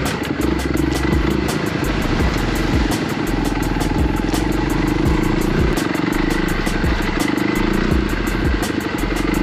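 Small off-road vehicle engine running steadily while riding, with frequent sharp knocks and rattles over the engine sound.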